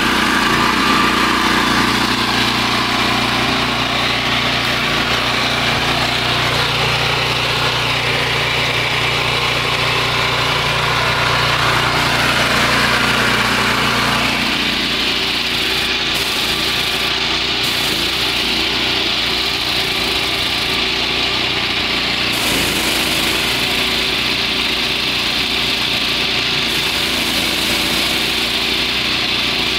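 Gas-engine pressure washer running steadily. About halfway through, its steady low note drops away. From about two-thirds of the way in, a high hiss joins as the wand sprays water.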